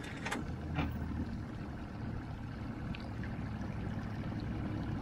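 Mercury 90 outboard motor running at low throttle, a steady low rumble with the wash of its wake. A few sharp clicks come in the first second.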